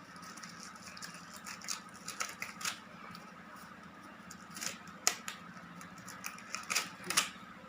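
Scattered light clicks, knocks and clatter of small nursing equipment being handled and put away, over a faint steady hum.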